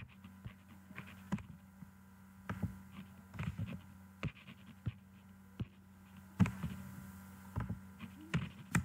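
Faint, scattered clicks of a computer mouse and keyboard at irregular intervals, a few louder ones in the second half, over a steady low hum.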